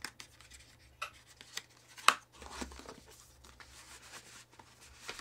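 Stiff card dossier and paper photographs being handled and slid out: card and paper rustling and scraping, with one sharp tap about two seconds in.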